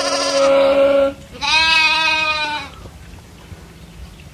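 Goat bleating twice, each call about a second long.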